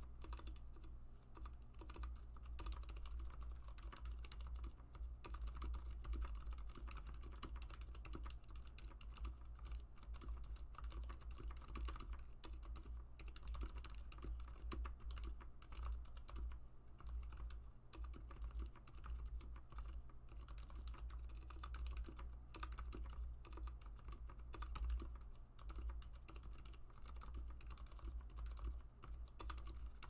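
Continuous fast typing on a YC96 mechanical keyboard fitted with Cherry MX Silent Black linear switches lubed with Krytox GPL 105. The keystrokes come as a dense, steady stream of soft clicks over a steady low hum.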